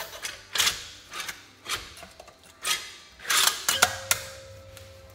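Cylinder head of a Honda Shadow VT1100 V-twin being worked free and lifted off the engine: a string of sharp metal clinks and knocks, then a steady ringing tone from about four seconds in.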